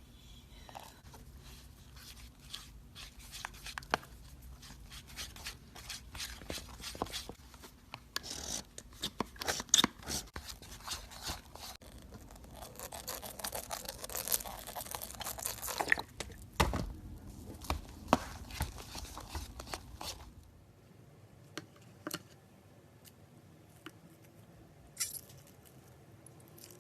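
A blade cutting through slime-filled stress balls: irregular wet crackling, tearing and small clicks, dense for most of the time, then thinning to a few scattered clicks for the last several seconds.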